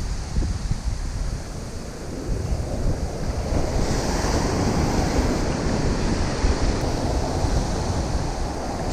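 Ocean surf breaking and washing on the beach, with wind buffeting the microphone as a low rumble. The surf grows louder about three seconds in.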